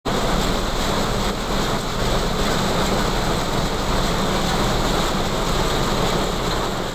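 Wheat threshing machine running steadily while threshing wheat: a loud, even mechanical rush with a low hum beneath.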